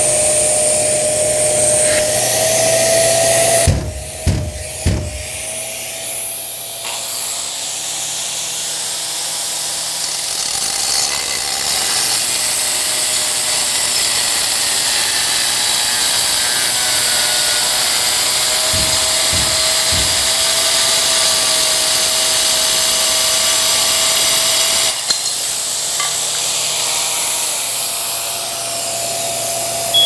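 A 4-inch angle grinder under a dust-extraction shroud cutting through tile, with a Bosch GAS 35 M AFC extraction vacuum running on the shroud's hose. It runs steadily with a high whine, has a few low knocks about four seconds in and again near twenty seconds in, and drops in level about twenty-five seconds in.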